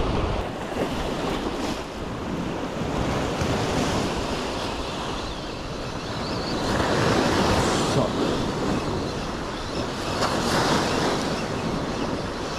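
Sea waves washing in a steady rush that swells twice, about halfway through and again near the end, with wind buffeting the microphone.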